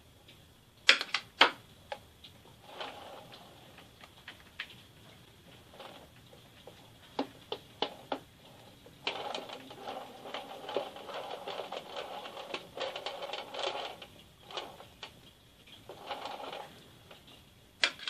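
Metal spatula working Italian meringue onto a cake: sharp taps and clicks of the blade about a second in, a few more around seven to eight seconds and one near the end, with several seconds of scraping and spreading in between.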